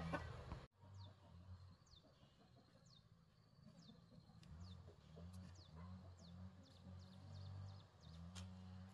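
Faint bird calls: a series of short, falling high chirps, about one a second, over a faint low hum.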